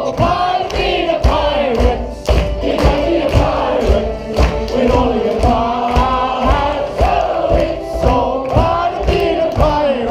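A cast and audience singing a song together to acoustic guitar and accordion, with hand-clapping along to the beat about twice a second.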